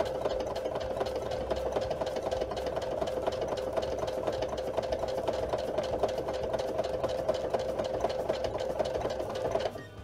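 Domestic electric sewing machine stitching steadily through hook-side Velcro tape and fabric: a running motor hum with rapid ticking of the needle. It stops near the end with the needle left down, ready to pivot.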